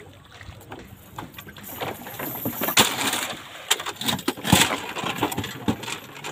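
Cast net thrown from a small boat, its weighted rim landing on the river with a spreading splash, amid clinks and knocks of the lead weights and the boat.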